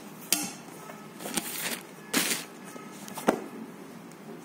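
Handling of a small cardboard product box and scissors: a sharp knock, two short rustling scrapes, then another knock.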